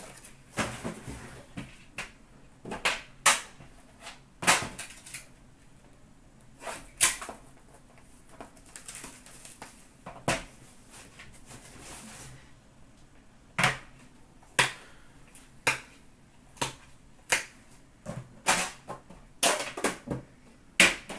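Metal Upper Deck The Cup hockey-card tins and their lids being handled and set down on a glass counter: irregular sharp clacks and clicks, with a stretch of rustling about halfway through.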